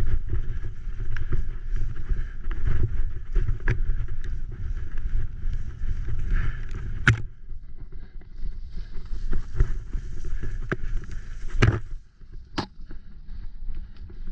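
A graziella folding bicycle rattling and jolting down a rough, muddy dirt trail, with wind buffeting the camera's microphone. Several sharp knocks from the bike hitting bumps stand out, the loudest about seven seconds in and twice near the twelve-second mark.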